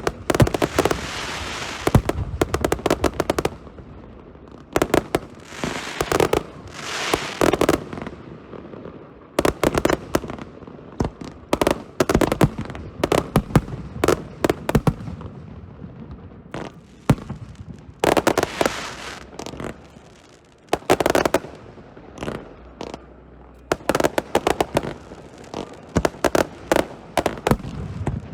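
Aerial fireworks display: repeated sharp bangs of shells bursting, mixed with rapid crackling, coming in clusters with brief lulls between them.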